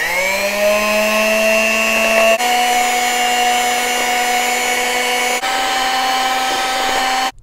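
Electric hand mixer whirring as its wire beaters whip raw eggs in a bowl: the motor spins up in pitch at the start, then holds a steady whine that steps slightly higher twice, and cuts off abruptly near the end.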